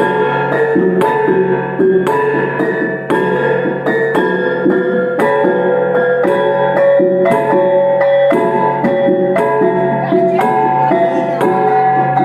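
Iban taboh music played on brass gongs: a steady, fast rhythm of struck gong notes that ring on and overlap, over a constant low gong drone.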